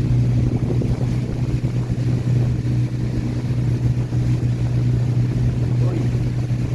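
Small motorboat's engine running steadily under way: a loud, even, low drone that holds constant pitch.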